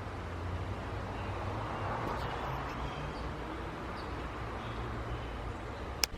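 Steady low rumble of motor traffic, with one sharp click near the end.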